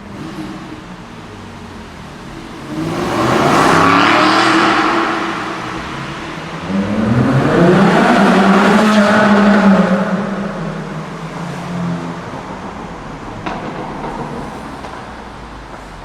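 Supercar engine accelerating hard in a tunnel: two loud surges, the second longer, each with the engine note climbing in pitch, then the sound fades away.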